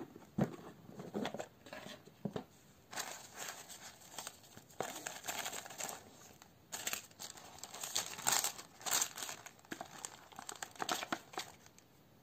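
Gift box being unpacked by hand: a few light knocks at first, then tissue paper rustling and crinkling as the ribbon is pulled off and the wrapping is folded back, from about three seconds in until near the end.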